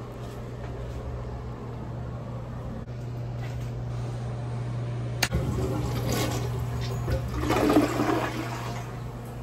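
Newly installed toilet flushed: a sharp click about five seconds in, then water rushing, loudest a couple of seconds later and still running at the end. A low steady hum runs underneath beforehand.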